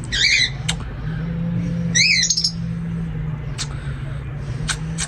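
Caged parrots squawking: two short harsh calls, one at the start and one about two seconds in, with another beginning at the very end, over a steady low hum.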